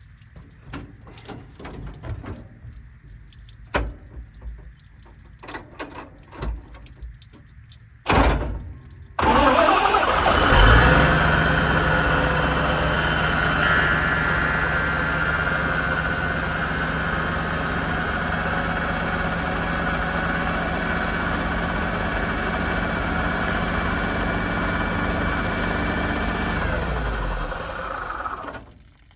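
Scattered light clicks and knocks, then about nine seconds in, just after a brief first burst, the rebuilt water pump and its drive start up. It runs steadily for about eighteen seconds, then shuts off and winds down near the end. The pump runs freely here, no longer bound up.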